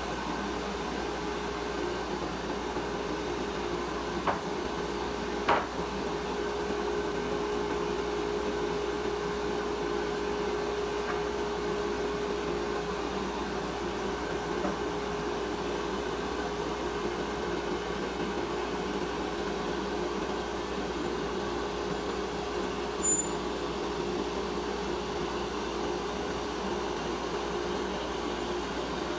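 DeWalt DW735 benchtop thickness planer running steadily with a constant hum, with two short knocks about four and five and a half seconds in and a sharp click near the end.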